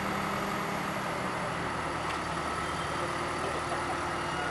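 Heavy diesel engine running steadily, its note shifting slightly about a second in.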